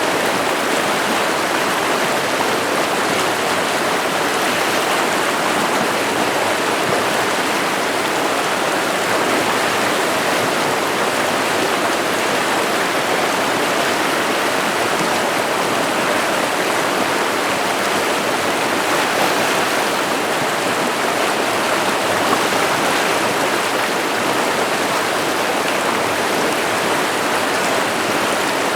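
A river's water running steadily over rocks, a continuous rushing and babbling.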